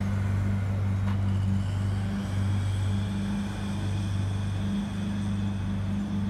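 Lamborghini Aventador's V12 idling at a standstill in traffic: a steady, deep drone that holds at one pitch.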